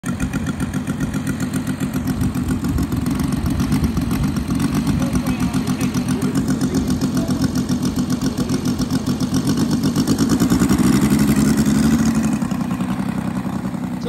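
Saito FG-90R3 three-cylinder four-stroke gasoline radial engine on a model F4U Corsair, running steadily at low throttle as the plane begins to taxi. It gets a little louder for a couple of seconds near the end, then eases off.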